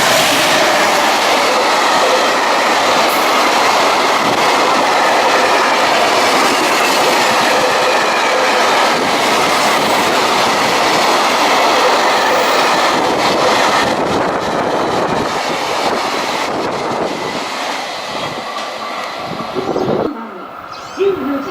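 JR freight train on the Tokaido Main Line passing by, a loud, steady rush of wheels on rails that fades away over the last several seconds as the train goes.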